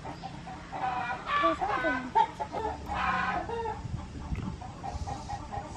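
Chickens clucking, with a quick run of repeated clucks in the second half.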